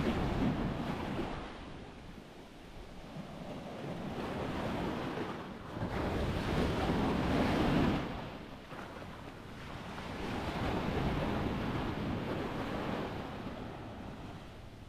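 Sea waves washing up on a sandy beach in slow surges, the loudest about six seconds in and ending abruptly near eight seconds, with wind buffeting the action camera's microphone.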